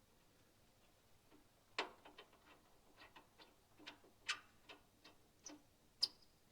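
Faint, irregular light clicks and taps of tools and metal parts being handled while a part is refitted on an excavator, with one sharper metallic click about six seconds in.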